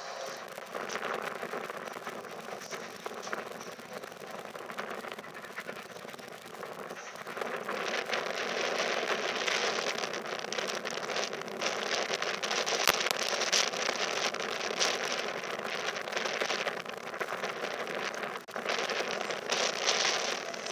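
Train pulling away through the station, heard as a steady rushing hiss with fine crackling clatter that grows louder about eight seconds in.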